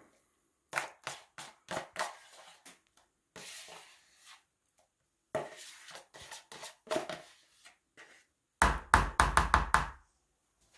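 A spatula scoops and scrapes whipped topping out of a plastic tub into a plastic bowl of pudding, with scattered soft knocks and scrapes. Near the end comes a quick run of about six louder knocks.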